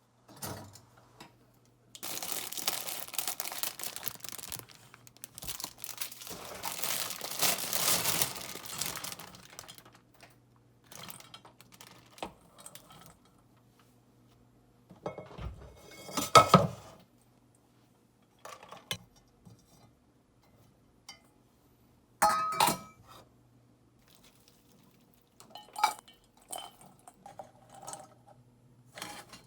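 Kitchen handling sounds: a long stretch of rustling noise, then scattered knocks and clinks of dishes and utensils, one clink ringing briefly, over a faint steady low hum.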